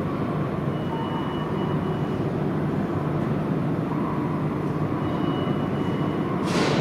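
R160A-2 subway train rumbling into the station, with a faint high squeal from the wheels or brakes now and then and a brief hiss near the end.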